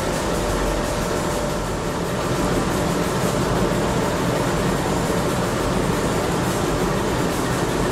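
NR class diesel-electric locomotives idling at a standstill: a steady engine drone with a low hum.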